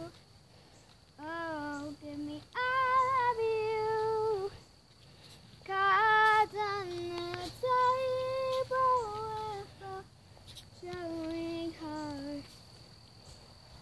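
A young girl singing unaccompanied: held, gliding notes in short phrases with pauses between them.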